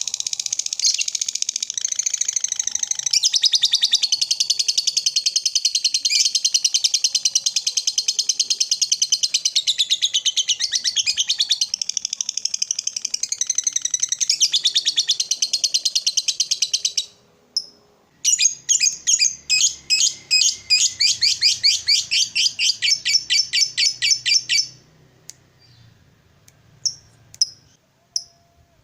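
Lovebird ngekek: a long, rapid, chattering trill of high calls that runs on for many seconds, breaks off briefly, starts again in a second long run, and ends in a few spaced single chirps.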